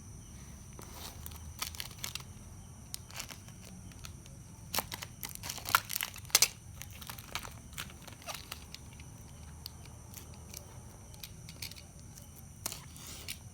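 Plastic packaging crinkling and tearing as it is handled, in scattered crackles and clicks, with a louder flurry around the middle.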